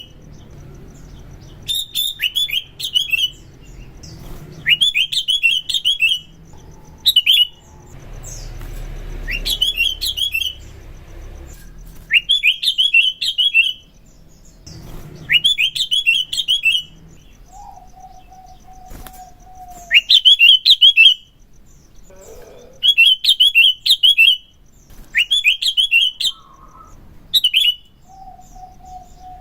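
Sooty-headed bulbul (kutilang) singing: short, sharp phrases of rapid chirps, repeated every two seconds or so. A fainter, lower steady whistle comes twice, once past the middle and once near the end.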